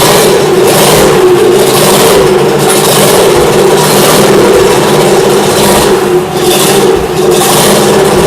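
Porsche 356 Speedster's air-cooled flat-four engine running loudly and being revved, with the throttle rising and falling every second or so.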